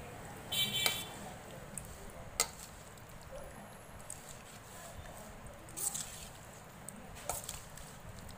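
Metal spoon stirring chunks of boiled potato through a thick gravy in a stainless steel bowl: a few scattered clinks and scrapes of spoon on steel, the loudest with a short ring about a second in, and soft squishing of the coated potatoes.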